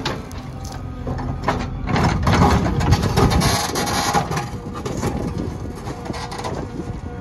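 Backhoe loader's diesel engine running, with sharp metallic knocks and a louder stretch of rushing, scraping noise about two to four seconds in.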